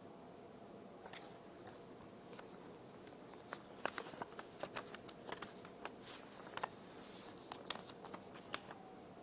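Paper handling: a large manila envelope being opened and a printed sheet drawn out of it, heard as a run of soft rustles and crisp paper clicks that begins about a second in and stops shortly before the end.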